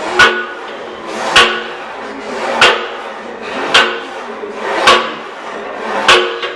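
Plate-loaded leg press sled clanking at each repetition: six sharp metallic impacts in an even rhythm, about one every 1.2 seconds, each preceded by a short swell of sound that builds up to it.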